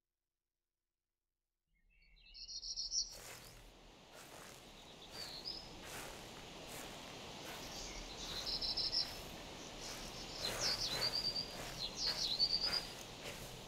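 Silence for about two seconds, then outdoor ambience with small birds chirping and trilling in short phrases, and scattered clicks or knocks.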